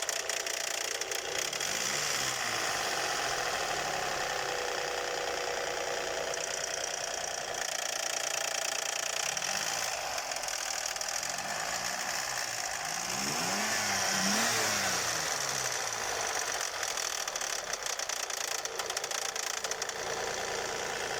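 1999 Lexus RX300's 3.0 V6 engine idling with a knock, which the owners take to come from the cylinder head.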